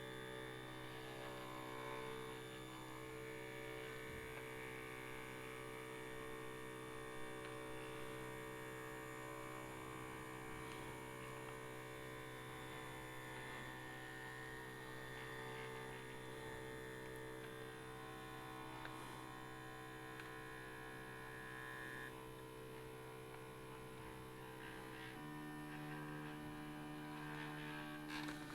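CNC T106 portable thermal stencil printer running a print job, its paper-feed motor giving a faint, steady whirring hum. The hum changes pitch about three-quarters of the way through.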